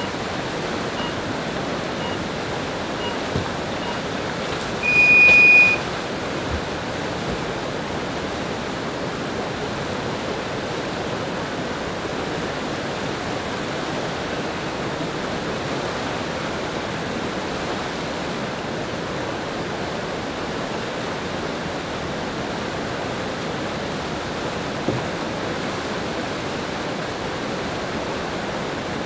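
Steady rushing of whitewater pouring through a concrete slalom channel. In the first seconds, several short faint beeps about a second apart lead into one longer, louder beep about five seconds in: the electronic start countdown sending the paddler off.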